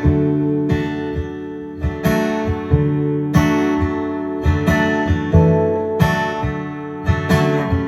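Acoustic guitar strumming chords, the instrumental introduction to a song before the voice comes in, with a fresh strum roughly every second.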